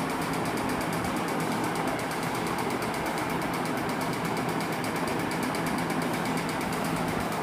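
Steady mechanical whir with a low hum beneath it, as from a motor running without a break.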